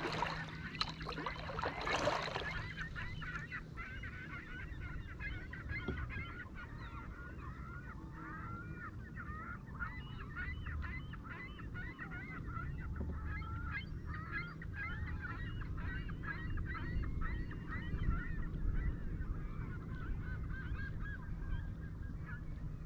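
A flock of birds calling, many short overlapping calls in a continuous chorus. Two loud splashes come in the first couple of seconds, over a low steady rumble of water and wind.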